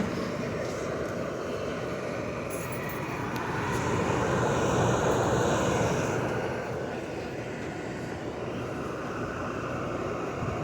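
Dehumidifier running with its compressor on: a steady fan and compressor hum. A wider swell of noise rises and falls for about three seconds in the middle.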